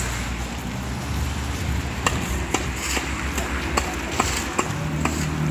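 City street ambience: a steady low rumble of traffic, with a run of sharp clicks about twice a second starting about two seconds in.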